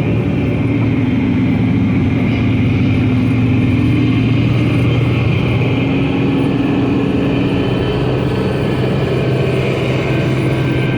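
Amphibious Duck boat's engine running steadily under way, a loud, even drone.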